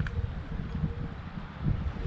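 Wind buffeting the microphone: an uneven low rumble, with a faint steady hum underneath.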